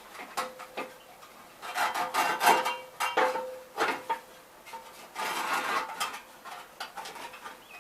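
Scraping, rubbing and clanking as a small tractor's fuel tank is handled and wedged into place, in several irregular bursts.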